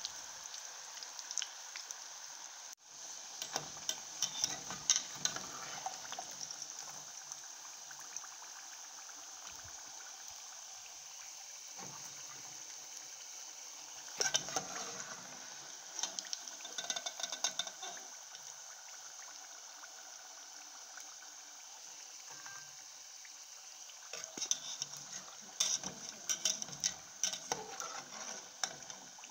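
Banana slices deep-frying in hot oil in an aluminium pot: a steady sizzle with bursts of crackling at times. A metal spatula stirs in the pot near the end.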